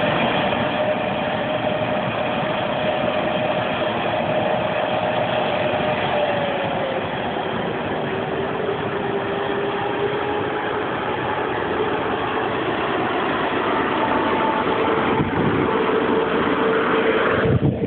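A long passenger train hauled by a class 151 electric locomotive rolling past, a steady rushing rumble of wheels on rails. A whining tone drops in pitch about six seconds in, and other steady whines follow through the rest of the passage.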